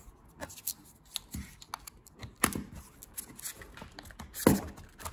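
Handling noise: scattered small plastic clicks and knocks as a small tripod grip is lifted out of a hard-shell zippered accessory case, with louder knocks about two and a half and four and a half seconds in.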